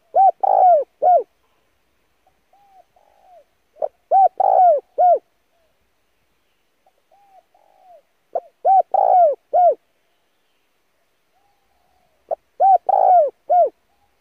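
Spotted dove cooing: four phrases about four seconds apart, each a short run of arched coos lasting just over a second. Softer coos come between the phrases.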